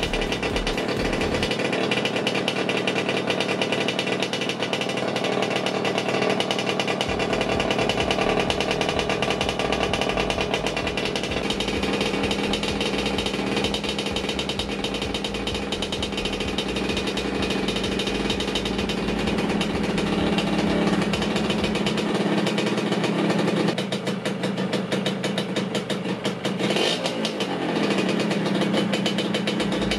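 Freshly rebuilt Yamaha RXT 135 single-cylinder two-stroke engine running after its first start, a fast, rattly two-stroke beat with a loud exhaust from a holed muffler. Its note shifts a few seconds before the end.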